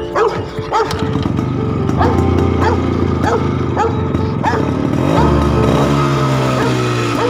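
A dog barking over and over, about every two-thirds of a second, over steady background music.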